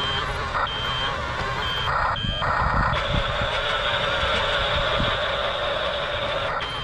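Toy RC bulldozer running, its motor and gears making a steady hum. A high back-up beeper sounds about once a second for the first three seconds, then gives way to a steadier high tone.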